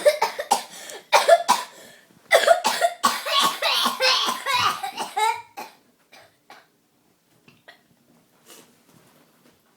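A child's fake coughing: a run of forced coughs one after another for about five and a half seconds, then only a few faint sounds.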